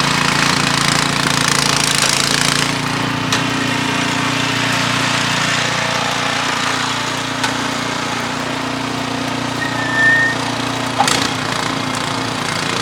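Gasoline snowblower engine running steadily while clearing heavy, wet, compacted snow. A few sharp clicks and a brief high squeak about ten seconds in.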